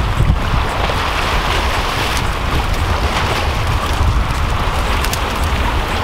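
Wind buffeting the microphone in a steady low rumble, over small waves washing and splashing against shoreline rocks.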